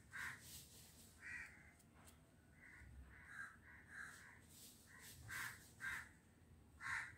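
Crows cawing repeatedly in short calls, the loudest near the end, over otherwise quiet surroundings.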